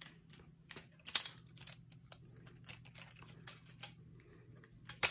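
Butterfly-knife trainer of 3D-printed plastic with metal hardware and steel weights being flipped and spun in the hand, its handles clacking against each other in quick, irregular clicks. There are two sharper clacks, one about a second in and one at the end.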